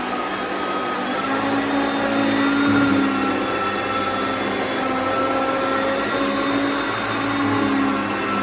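Hoover Concept upright vacuum cleaner running steadily, its motor whine wavering slightly up and down in pitch.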